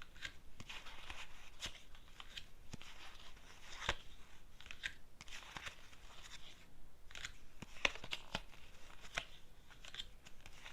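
Tarot cards being handled: shuffled and laid down in irregular soft rustles, with a few sharper card snaps, the loudest about 4 and 8 seconds in.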